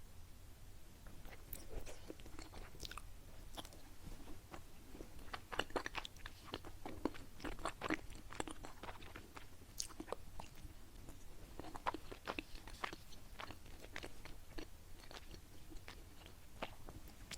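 Close-miked chewing of a sticky glutinous-rice qingtuan cake: soft wet mouth clicks and smacks, busiest around the middle and again about twelve seconds in.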